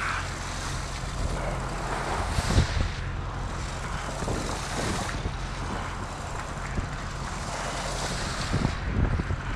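Boat engine running steadily as a low hum, with wind buffeting the microphone. A few knocks come about two and a half seconds in and again near the end.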